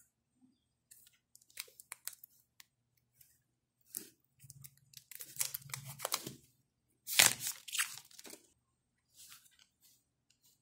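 Plastic protective film being peeled off a new smartphone's screen: irregular crinkling and crackling, loudest a little after seven seconds in.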